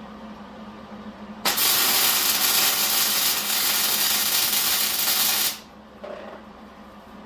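Welding arc sizzling as a weld bead is laid on a steel frame, starting abruptly about a second and a half in, running steadily for about four seconds and cutting off suddenly.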